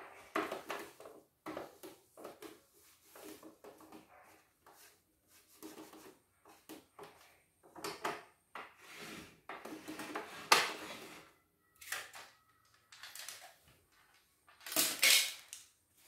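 Plastic housing parts of a computerized embroidery machine being handled and fitted back on: irregular clatter, clicks and knocks, loudest a little past halfway and again near the end.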